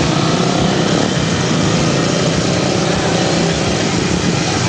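Several motorcycle engines running together at low speed as a group of riders passes, a steady, loud engine noise.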